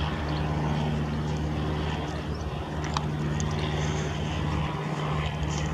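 Cessna 152's four-cylinder piston engine and propeller droning steadily in flight, a low even hum. A brief click about three seconds in.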